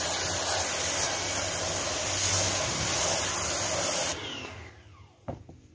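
High-pressure water jet from a motorbike-washing spray pump hissing steadily against a styrofoam hydroponic board, with a low hum under it. It cuts off suddenly about four seconds in, and a short click follows near the end.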